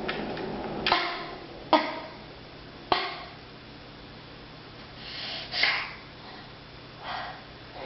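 A person giving a deliberately fake, put-on cough: three short, sharp coughs about a second apart, then two breathier, drawn-out coughs a few seconds later.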